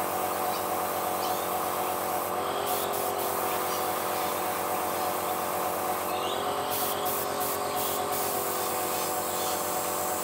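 A small airbrush compressor hums steadily while the airbrush gives short hissing bursts of spray, a few around two to three seconds in and several more between about six and eight seconds in.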